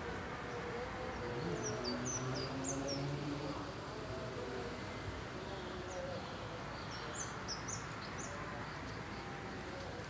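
Small songbird calling: two runs of short, high chirps, the first about two seconds in and the second about seven seconds in, over a steady outdoor background hiss.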